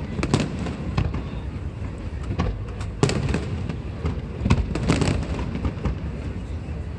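Aerial fireworks going off in quick succession, with many sharp cracks and booms over a steady low rumble, loudest in clusters about a third of the way through and near the middle.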